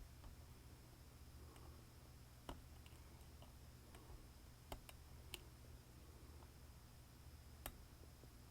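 A few faint, sharp clicks spaced seconds apart over near silence: a lock pick working in the door lock of a 1972 Rolls-Royce Silver Shadow.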